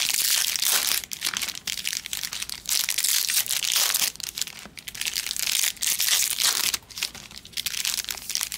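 Foil wrappers of 2022 Bowman Chrome trading-card packs crinkling and tearing as the packs are handled and ripped open, in repeated bursts with short pauses between them.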